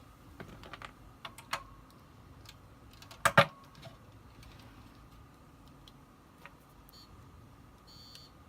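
A few light clicks and one sharp double click about three seconds in, from handling the desoldered key switch of a TRS-80 Model I keyboard. Short high-pitched electronic beeps come near the end.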